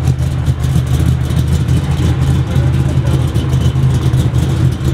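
LS V8 engine in a Toyota AE86 Corolla idling through a loud new exhaust system, a low, steady idle with a fast pulsing beat.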